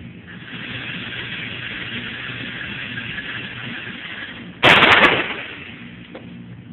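A loud gunshot, or a quick cluster of shots, rings out about two-thirds of the way in and trails off in echo. A steady hiss of background noise lies underneath.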